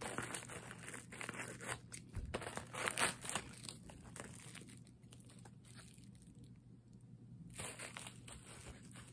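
Thin plastic packaging bag crinkling and tearing as it is cut open with scissors and pulled apart by hand, busiest in the first few seconds, then softer handling with another burst of rustling near the end.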